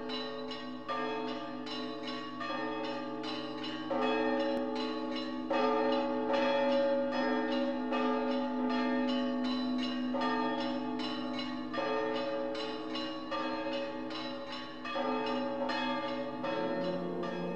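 Bells ringing in a fast, even run of strokes, several a second, with a low steady hum beneath, in the manner of church change ringing.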